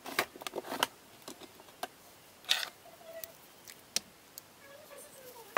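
Small sharp clicks and taps from handling at a fly-tying bench, several close together in the first second and a few more spaced out, with a short rustle about two and a half seconds in.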